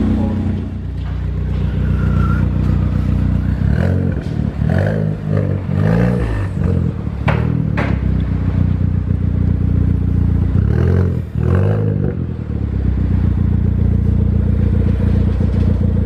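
Ford Fiesta ST's turbocharged four-cylinder engine idling through a newly fitted KMS Hurricane dual-tip exhaust, blipped several times in quick succession about a quarter of the way in and twice more about two-thirds of the way in. Two sharp cracks come just after the first run of blips.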